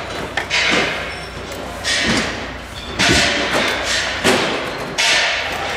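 A series of knocks and thuds, roughly one a second, from dismantling work: large decorative sign letters being pulled off a glitter-covered facade panel.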